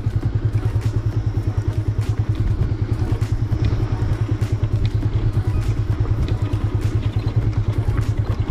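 Bajaj Avenger 180's single-cylinder engine running with a steady, rapid throb as the motorcycle rides over a rough, rocky dirt road, with scattered clicks and knocks from the stony surface.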